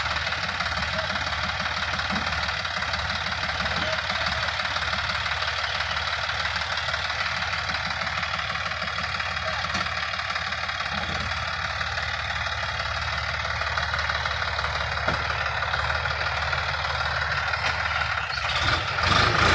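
Sonalika DI 50 RX tractor's diesel engine running steadily as the tractor creeps forward along a muddy track, growing louder near the end as it comes close.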